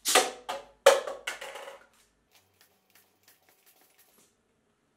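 Homemade syringe-powered airsoft rifle firing, with sharp hollow plastic knocks as a plastic cup is hit and knocked off its shelf. The loudest knock comes about a second in, followed by a few faint light taps that die away a little after four seconds.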